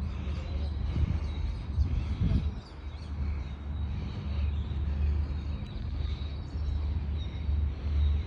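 Outdoor ambience: a steady low rumble with faint bird chirps above it.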